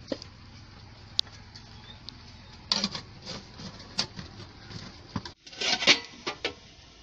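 Metal cooking pots clinking and knocking as a puttu steamer pot is handled and opened: a string of sharp clatters, loudest a little before the end.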